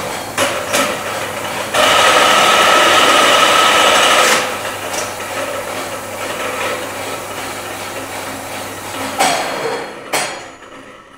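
Milling machine running, with sharp lever clunks. A louder whine lasts about two and a half seconds as the table traverses. Near the end a clunk comes as the red button is pressed, and the machine winds down to quiet.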